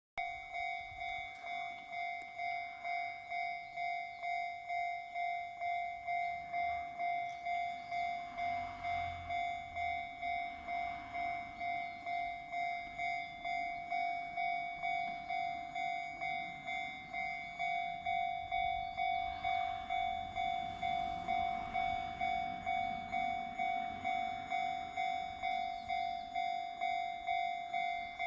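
Electronic railway level-crossing alarm ringing in the Chichibu-type tone, a steady ding repeating about twice a second, with faint low rumbles coming and going underneath.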